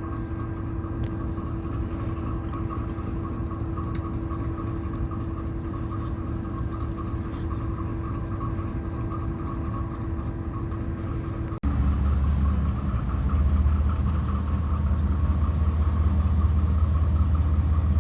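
Diesel locomotive engine running steadily with a constant hum. About a dozen seconds in the sound cuts abruptly to a louder, deeper engine drone that carries on.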